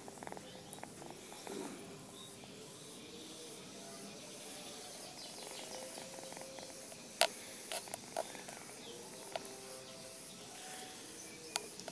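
A kitten purring close to the microphone, with four sharp clicks between about seven and nine and a half seconds in, the first the loudest.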